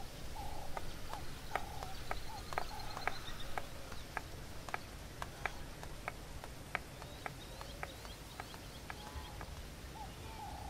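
A run of sharp taps, about three a second, over faint short chirps like birds, with a brief high trill near the start.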